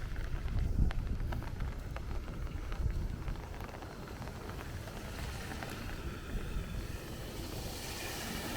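Low wind rumble on the microphone with a few scattered taps, then a vehicle's tyres hiss on the wet street, building from about halfway and strongest near the end.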